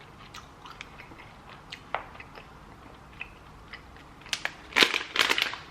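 A person chewing a soft gummy sweet close to the microphone: scattered faint wet mouth clicks, then a denser run of louder crackles about four seconds in.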